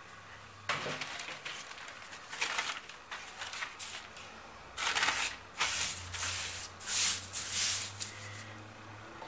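A large sheet of paper rustling and crinkling as it is lifted, folded and smoothed by hand, in a run of irregular bursts that stop about a second before the end.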